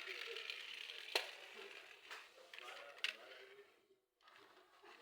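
Plastic friction toy car being pushed and rolling, a rattly whirr of its wheels and flywheel gearing, with three sharp plastic clicks.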